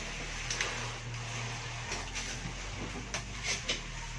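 Scattered rustles, scrapes and light knocks of packaging being handled as a boxed folding table is unwrapped, over a steady low hum.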